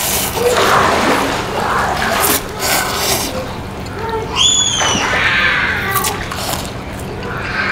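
Slurping of Samyang jjajangmyeon instant noodles, several drawn-in slurps with wet smacking, over pool water sloshing. A short high squeal rises and falls about four and a half seconds in.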